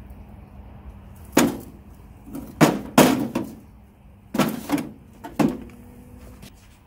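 Red-hot steel flatter hammer head plunged into warm quenching oil for hardening: five short, sharp bursts of noise, about a second apart, as the hot steel goes into and is moved in the oil.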